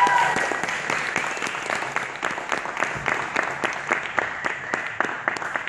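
Audience applauding, with a short high whoop right at the start.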